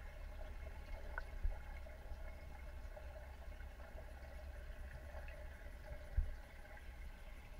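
Muffled underwater noise from a camera submerged in a koi pond: a steady low rumble with a faint hum above it. Two soft low thumps stand out, about a second and a half in and just after six seconds.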